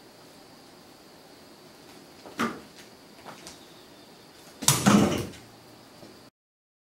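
A tabby cat pushing under a curtain and out through an open doorway: a short knock, a few light clicks, then a louder clatter of knocks and rattles about five seconds in. The sound cuts off suddenly near the end.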